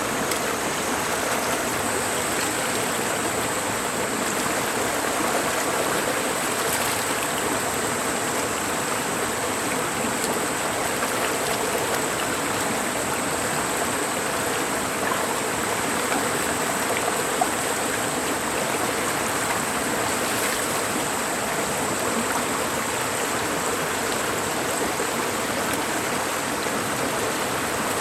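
Mountain stream rushing steadily over rocks, an even unbroken water noise, with a faint steady high-pitched tone above it.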